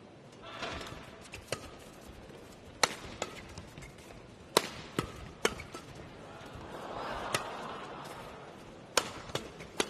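Badminton rally: a series of sharp cracks of rackets striking the shuttlecock, about ten hits at irregular intervals of roughly half a second to a second and a half, over a low arena hum.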